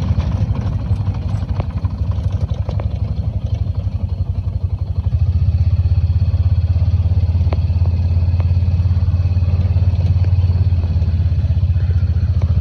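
Four-wheeler (ATV) engine running at low speed with a rapid, steady chug, growing louder about five seconds in.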